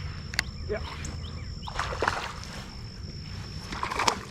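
Light splashing and sloshing of water as a hooked fish is played and brought in, with a few short splashes about two and four seconds in, over a steady high-pitched whine.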